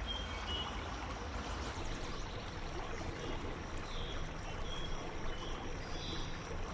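River water rushing and babbling over a shallow riffle, a steady wash with a low rumble beneath it. A few faint high chirps come through near the start and again later.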